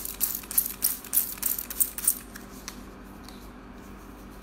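A quick run of short, hissy strokes, about three or four a second, stopping about two seconds in, over the steady hum of a running overhead projector.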